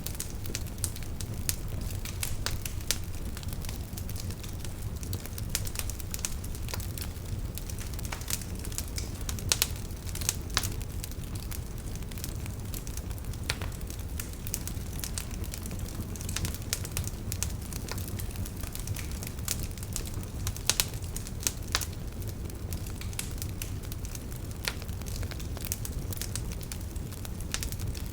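Wood campfire burning: frequent sharp crackles and pops, scattered unevenly, over a steady low rumble of the flames.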